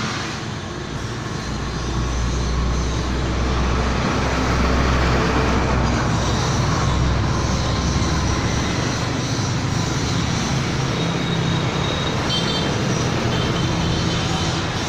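Stick welding arc from a Jasic ARES 120 inverter welder, sizzling steadily while a continuous bead is drawn; the sound is smooth and even.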